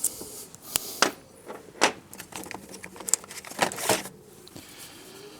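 Irregular light clicks and taps of a screwdriver blade and small metal parts being worked into the screw holes of a pressure washer's plastic housing.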